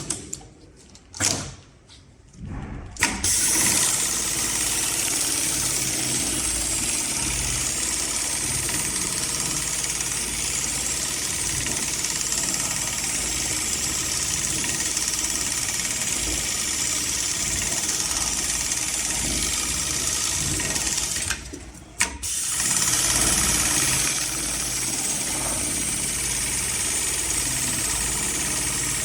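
HighTex MLK500-2516 industrial sewing machine running steadily as it stitches ratchet-strap webbing, starting up about three seconds in after a few short clunks. It stops briefly about 21 seconds in, then runs on.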